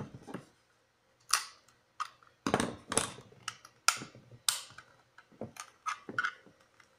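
Flathead screwdriver prying at the glued seam of a plastic stud finder housing: a run of irregular sharp clicks, snaps and scrapes of plastic.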